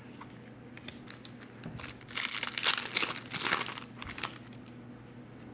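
Foil booster pack wrapper being torn open and crinkled by hand: a few light clicks, then about two seconds of crackling and tearing that stops around four seconds in.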